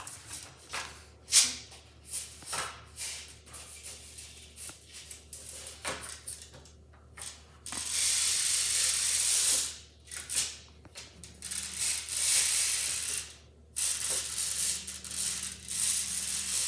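Plastic fidget toys being handled: scattered clicks and knocks, then longer spells of shaking rattle lasting a couple of seconds each, about eight seconds in and again twice near the end.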